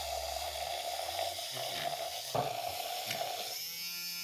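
Battery-powered handheld milk frother whisking matcha and water in a cup, with a steady whirring and frothing hiss. Near the end the sound changes to a steadier pitched hum.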